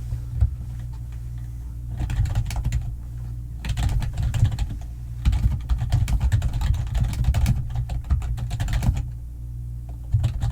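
Computer keyboard typing in fast, uneven runs of keystrokes, with a single key click about half a second in and a pause near the end, over a steady low hum.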